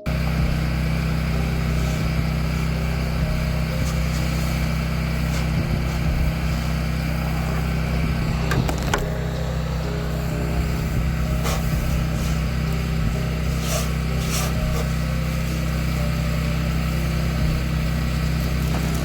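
The engine of a pressure-washing rig running steadily at one speed, with a few short hisses around the middle.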